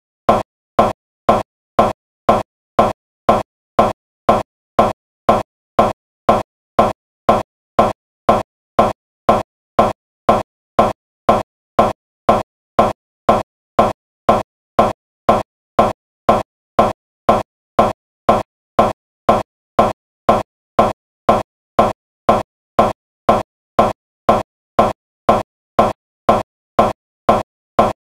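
The same short blip repeats evenly about twice a second, each repeat identical: a stuck playback loop, an audio glitch with the picture frozen.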